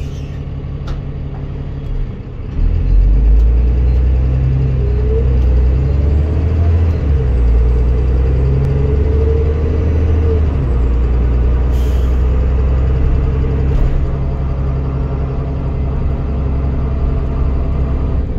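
Dennis Trident 2 double-decker bus's diesel engine heard from the upper deck, pulling away harder about two and a half seconds in, with a whine that rises and falls as it accelerates, then running steadily. A short hiss of released air comes about twelve seconds in.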